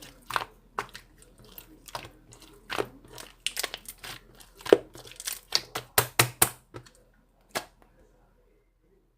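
Clear slime being squished and pressed by hand, giving a rapid run of sharp popping and crackling clicks. The pops stop about seven seconds in, with one last pop near eight seconds.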